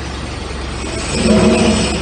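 Small engine of a portable hydraulic power pack running with a steady low hum. About a second in it briefly grows louder with a higher pitched drone, then settles back.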